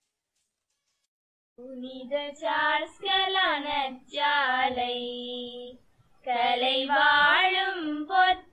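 Children's voices singing a Tamil school song in sung phrases with short breaks, starting about a second and a half in after silence.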